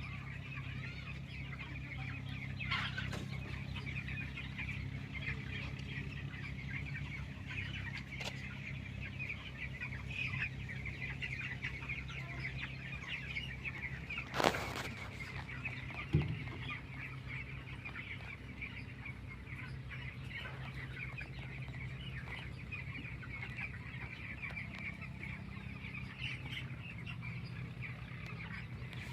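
A large flock of chickens clucking and chattering continuously, over a steady low machine hum. A sharp click about halfway through and a knock shortly after.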